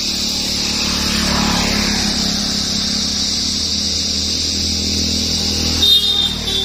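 A motor vehicle engine running steadily, swelling briefly about a second in, with a short high tone near the end.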